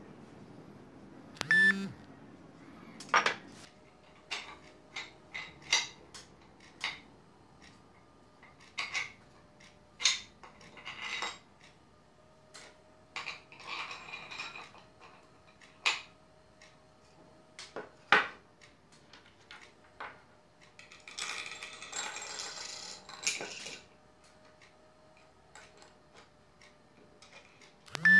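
Small metal parts (bolts, washers and steel rods) clicking and knocking against a plastic base and a wooden tabletop as a drill guide is assembled by hand, as irregular separate clicks with two longer stretches of scraping and rustling.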